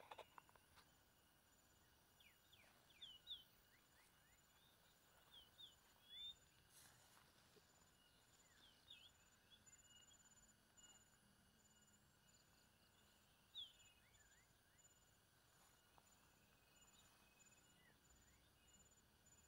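Near silence with faint field sounds: scattered short bird chirps and a steady, thin, high insect tone that comes and goes.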